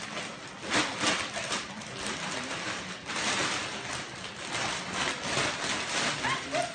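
Thin plastic bag crinkling and rustling in an uneven crackle as a kitten crawls around inside it and shoves it across a tiled floor.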